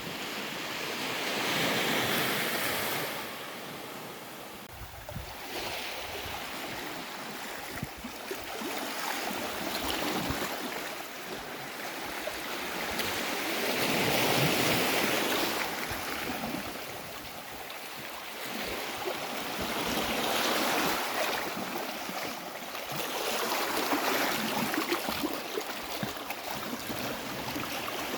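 Ocean waves breaking on a beach, the surf swelling and falling back in slow surges every few seconds.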